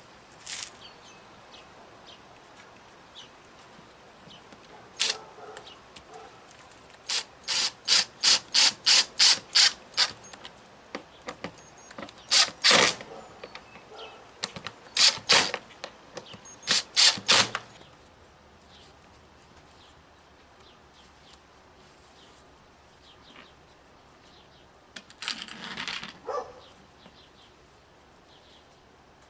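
Groups of sharp mechanical clicks from hand tools working the screws of a cooler's broken plastic hinges: one run of about nine evenly spaced clicks at roughly three a second, then a few shorter clusters, with quiet stretches between.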